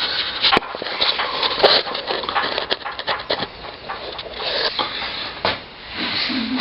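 Scuffs, light knocks and rustling close to the microphone as a motorcycle front wheel is handled and lined up between the forks.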